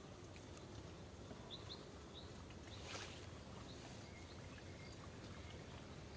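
Faint outdoor ambience: a steady low background noise, with a pair of short high chirps about a second and a half in and a brief sharp rustle or click about three seconds in.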